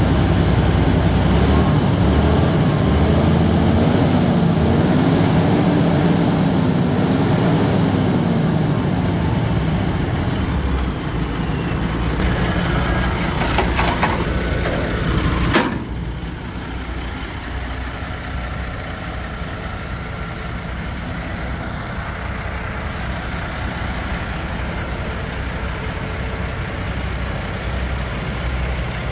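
MAN 19.361 truck's diesel engine idling steadily. A few sharp knocks come a little past halfway, after which the engine sounds quieter.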